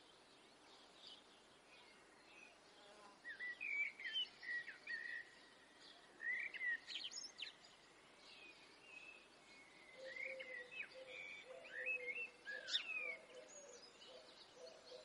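Birds chirping and whistling over a faint steady hiss: quick calls come in from about three seconds in, and a lower, repeated hooting note joins about ten seconds in.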